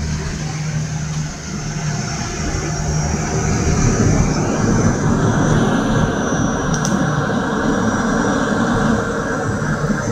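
Cabin noise inside a de Havilland Canada DHC-6 Twin Otter coming in to land: the twin PT6A turboprop engines' steady drone with a thin high whine over it, and a rumble of airflow that grows louder about two seconds in.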